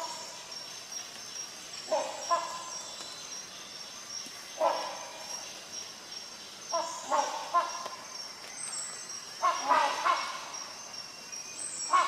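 Rhinoceros hornbill giving short honking calls, spaced a couple of seconds apart at first, then coming in quicker runs of three or four near the end. A faint, steady, high pulsing trill runs underneath.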